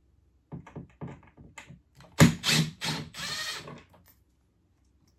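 Cordless drill running for about a second and a half, about two seconds in, backing out one of the corner screws that hold the drain pan of a ceiling cassette air conditioner. Before it come a few light clicks and knocks as the drill is set against the screw.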